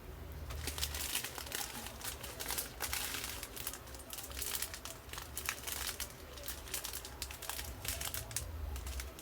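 Small plastic bags of diamond-painting drills crinkling as they are handled and turned over for inspection, an irregular run of crackles.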